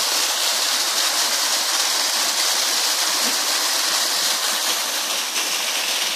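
Steady, unbroken rush of water from a waterfall on a stream, an even hiss with little low rumble.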